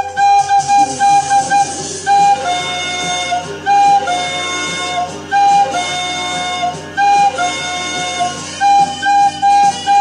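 White plastic soprano recorder playing a melody: quick repeated short notes at first, then longer held notes rocking between two neighbouring pitches. A quieter, lower accompaniment sounds underneath.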